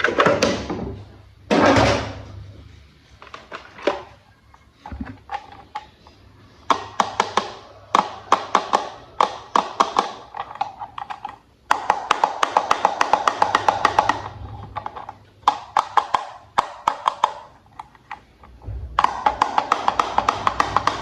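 Music with stretches of rapid, regular clicking that start and stop several times, and a couple of knocks in the first two seconds.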